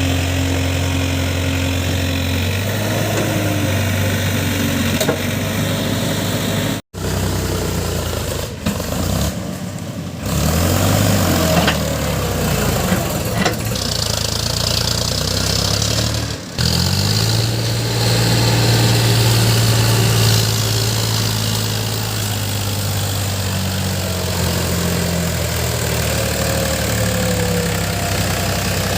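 Diesel engine of a JCB 3DX backhoe loader running while it loads mud, its pitch rising and falling as it works. The sound breaks off abruptly twice, at about seven and sixteen seconds.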